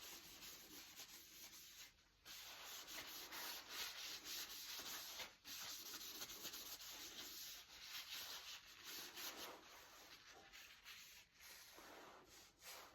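Blade being sharpened on a 2x72-inch backstand belt grinder, the edge rubbing on the abrasive belt with a faint, steady sanding hiss. The hiss breaks off briefly twice, about two and five seconds in.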